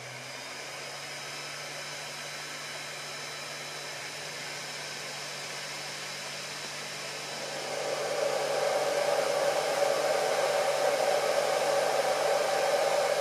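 Cooling fans of a Tronxy X5SA Pro CoreXY 3D printer running steadily as they are switched on one by one: the hot end fan, then the part cooling fan. About eight seconds in, the electronics case cooling fan comes on and the whir gets much louder and fuller. That case fan is the main cause of the printer's high noise level.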